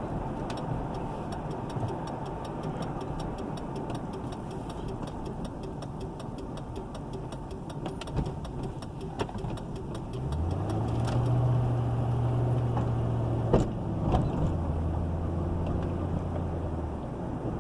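Car driving, with engine and road noise and a few sharp pops from the suspension, which the driver suspects is the sway bar. About ten seconds in, a steady low hum joins and holds for about seven seconds.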